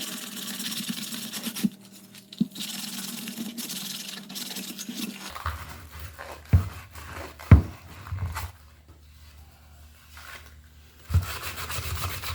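Sandpaper rubbed back and forth by hand over a wooden board, a rasping scrape that stops for a few seconds in the middle and starts again near the end. Several sharp knocks of wood being handled come in between, two of them loud.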